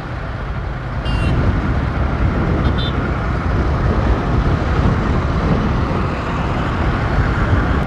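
Motorcycle running at road speed, heard from the pillion seat: a steady rush of wind and road noise over the engine.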